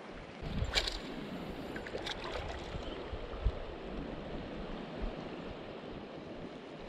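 Steady rush of a shallow, stony river, with a low uneven rumble under it. A few sharp clicks about one and two seconds in, and a short low thump a little later.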